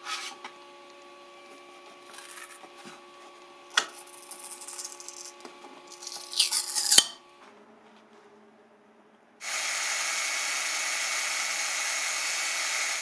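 Cordless drill drilling into the metal apron of a lathe: a loud, steady whirr that starts suddenly near the end. Before it, a 3D print is scraped and flexed off the printer's build plate over the hum of the printer's fans, popping free with a sharp click.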